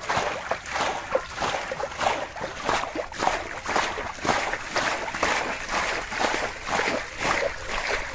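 Hands sloshing and scooping through shallow, muddy water, making an irregular run of splashes several times a second.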